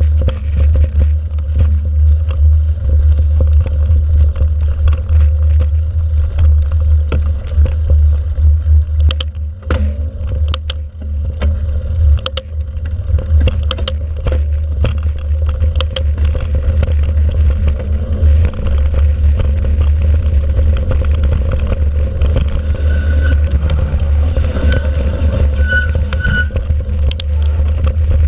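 Mountain bike riding fast over a dirt forest trail, heard from a camera mounted on the bike: a steady low rumble of wind and tyre noise on the microphone, with frequent clatter and rattling knocks from the bike over bumps.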